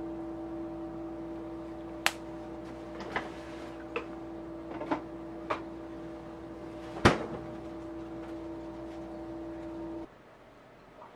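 A steady machine hum with a clear pitched tone runs under a series of sharp clicks and knocks from a plastic mayonnaise squeeze bottle being handled and squeezed over a rice bowl, about six of them, the loudest about seven seconds in. The hum cuts off suddenly about ten seconds in.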